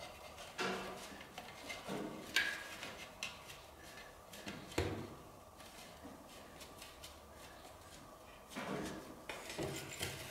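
Quiet handling noises as fingers press and smooth a self-adhesive dust-filter mesh into a plastic PC case panel: scattered rustles and a few light knocks of the plastic panel, with a longer rustle near the end.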